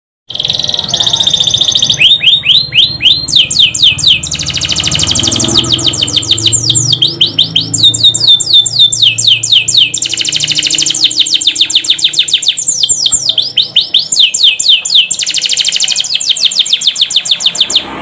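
Domestic canary singing a loud, continuous rolling song: fast trills and runs of rapidly repeated sweeping notes, switching to a new phrase every second or two.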